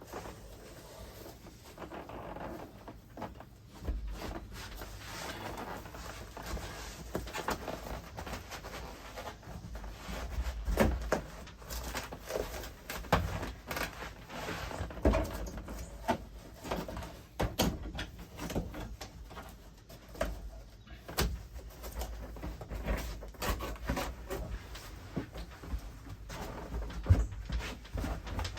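Irregular knocks, taps and rustling of hands fitting Bedrug foam liner pieces in a pickup truck bed.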